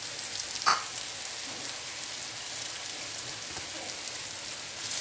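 Ground spice paste and dried shrimp sizzling in hot oil in a wok: a steady frying hiss, with one sharp knock a little under a second in.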